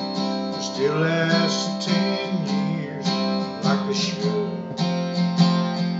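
Ovation acoustic guitar strummed in a steady rhythm of open chords, under two strums a second, between sung lines of a country song.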